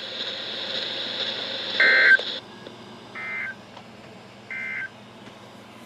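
NOAA Weather Radio's EAS end-of-message data signal: three short, identical two-tone data bursts about a second and a third apart, marking the end of the special marine warning. The first burst is the loudest, and a steady radio hiss with a high whine cuts off just after it.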